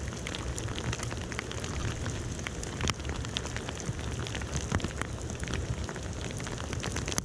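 Heavy rain falling, with many sharp ticks of drops striking close by.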